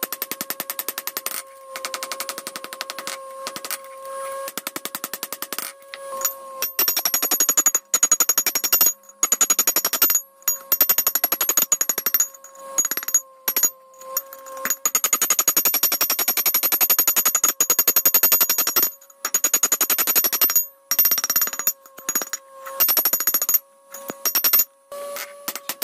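Very fast, evenly spaced hammer blows on steel over an anvil, with a steady metallic ring from the anvil under them, cut off abruptly for a moment several times.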